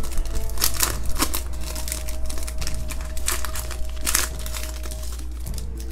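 Foil wrapper of a trading-card pack crinkling and tearing as it is pulled open by hand, in a run of irregular sharp crackles.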